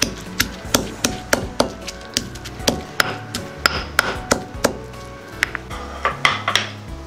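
Stone pestle pounding dried red chillies, garlic and salt in a stone mortar: a run of sharp knocks, about three a second, with a short pause about five seconds in.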